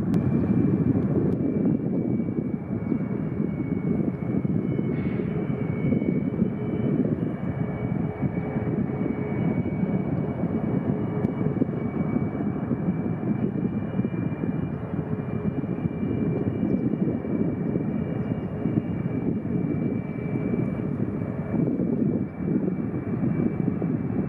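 Boeing 737-8 MAX's CFM LEAP-1B turbofan engines running at taxi power: a steady rumble with a high, steady whine over it.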